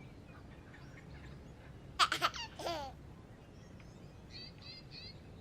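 A small child's short laugh or babble about two seconds in, just after a couple of sharp clicks, over a faint steady background. Three quick high chirps near the end.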